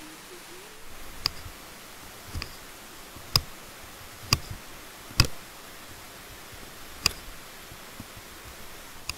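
Small kitchen knife slicing a red onion into rings on a wooden cutting board: seven sharp knocks of the blade reaching the board, about a second apart, over a steady hiss.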